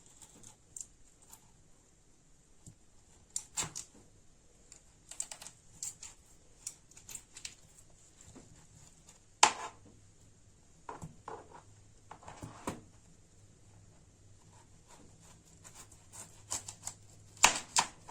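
Irregular taps, clicks and short scrapes of kitchen work, with one loud knock about nine seconds in and another near the end.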